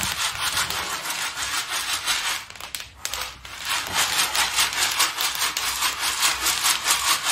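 Hot salted apricot pits crackling and popping as their shells split open after dry-roasting in a kazan, mixed with the rattle of the pits being scooped out and poured into a metal tray. The crackling is dense and made of many quick clicks.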